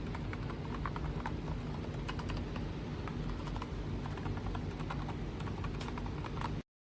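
Typing on a mechanical keyboard fitted with PBT keycaps of OEM height: an uneven run of key clacks over a steady low hum. The sound cuts off suddenly near the end.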